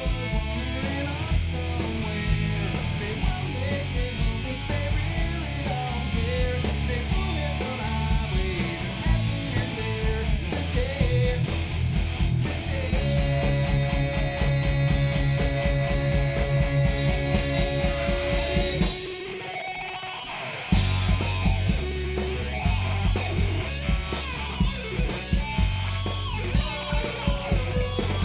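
Live rock band playing an instrumental passage on electric guitars, bass and drum kit. About two-thirds of the way in, a held guitar note gives way to a brief break. The full band then crashes back in.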